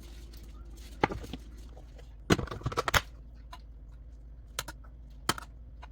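Kitchen utensils clicking and knocking against dishes or cookware: a single knock about a second in, a loud cluster of knocks between two and three seconds in, then two lone clicks near the end, over a low steady hum.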